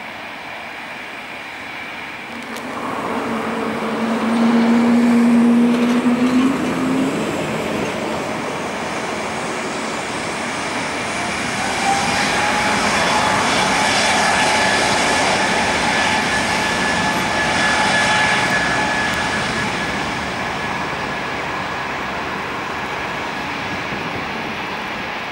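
Airbus A220-300 jet's Pratt & Whitney PW1500G geared turbofans. Engine noise swells a few seconds in; then, about twelve seconds in, the engines spool up to takeoff thrust, a steady whine over rushing jet noise. It holds through the takeoff roll and eases slightly near the end as the nose lifts.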